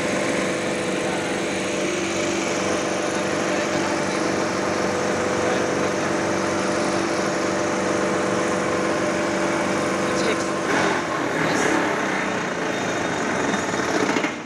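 An engine running steadily with a constant drone, with a few knocks and a change in the sound about ten seconds in.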